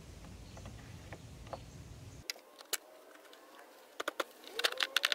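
Plastic dust cover on a Chevy 2.4L Ecotec engine being pulled up off its snap-in mounts, with a quick run of sharp plastic clicks and snaps near the end. Earlier there is a faint low rumble that stops abruptly about two seconds in.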